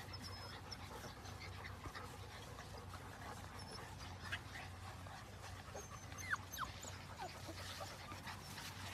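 Small white puppies, faint, with two short high squeaks a little past the middle, over a steady low hum.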